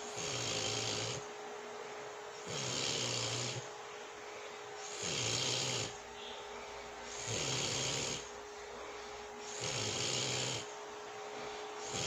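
A sleeping woman snoring steadily: a low buzzing snore with a breathy hiss about every two and a half seconds, each lasting about a second, five in a row. A faint steady hum runs underneath.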